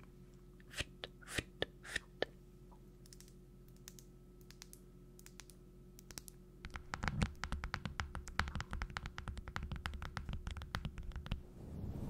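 Close-miked ASMR tapping and scratching: a few scattered clicks at first, then from about seven seconds in a dense, fast patter of small taps with a low rumble, which thins out near the end.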